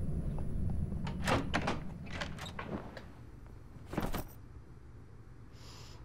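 Interior door handling: a quick, irregular run of clicks and knocks, then one louder knock about four seconds in as a door is shut.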